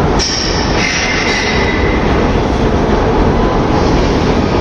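Moscow metro train running with a loud steady rumble. About a quarter second in there is a knock, followed by a brief high squeal lasting a second or two.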